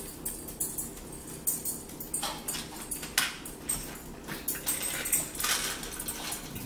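Dog whimpering in short, repeated whines and yips, begging for food at the table.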